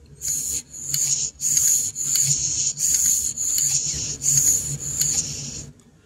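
Breath blown and sucked through a rubber hose into a furnace air pressure switch: about eight breathy puffs in quick succession, each carrying a high steady whistle of air through the switch's narrow port, working the diaphragm by mouth.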